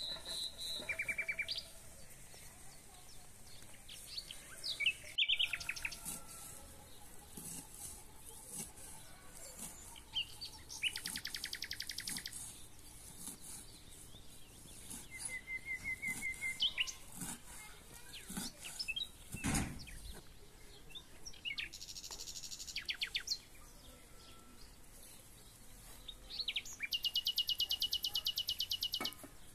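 Small birds singing and chirping in repeated fast trills and short whistled notes, with a single sharp knock about twenty seconds in.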